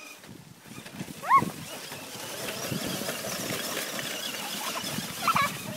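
Small electric radio-controlled monster truck driving over dry leaves and dirt: a rustling noise that swells about a second and a half in. A short high-pitched cry comes just before it, about a second in.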